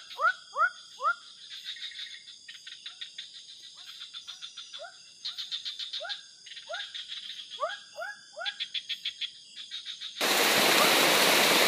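Night forest chorus: frogs give short rising calls in quick runs, over a steady high insect drone and rapid insect trilling. About ten seconds in, this cuts off abruptly to a loud, steady rush of water.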